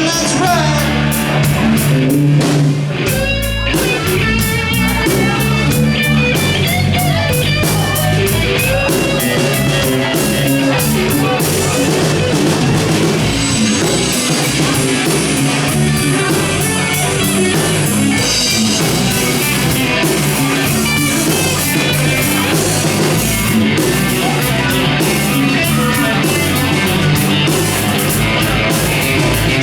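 Live country-rock band playing an instrumental break: a guitar lead with bending notes over a steady drum kit beat and bass.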